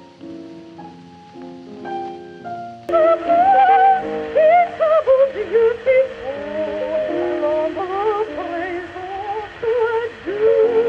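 Piano playing for about three seconds, then an abrupt cut to a 1904 acoustic recording: a woman singing with vibrato over piano accompaniment, with narrow, muffled sound and steady hiss.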